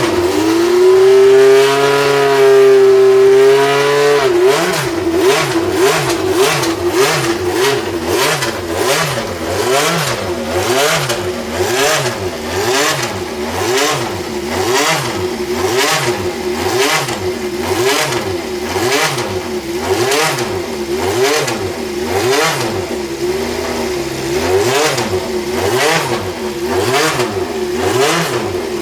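Maki F101A Formula One car's Cosworth DFV V8 running loud. It holds a steady high pitch for about four seconds, then is revved up and down over and over, roughly once a second.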